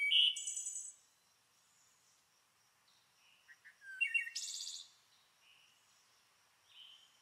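Birds chirping and trilling: short high chirps and fast trills, loudest near the start and again about four seconds in, with fainter calls between and no background noise under them.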